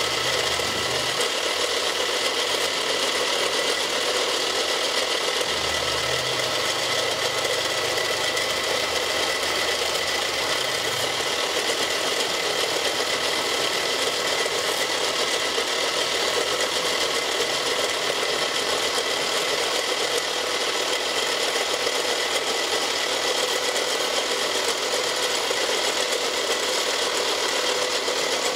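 Milling machine running steadily as its cutter machines a block of plastic, a dense steady cutting noise with a fixed whine over it. A low hum is present in the first second and again from about six to eleven seconds in.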